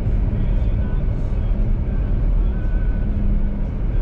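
Steady low rumble of a Jeep's engine and tyres on a snow-covered road, heard from inside the cabin while driving, with a faint steady hum.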